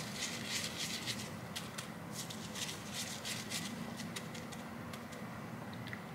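Dry panko breadcrumbs crackling and rustling as hands press and roll a croquette ball in them: a run of short, scratchy crunches that thins out after about four seconds.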